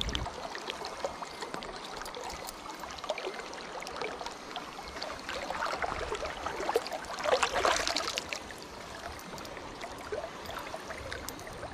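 River current running, a steady rushing water noise with small scattered clicks, and a louder noisy stretch about seven to eight seconds in.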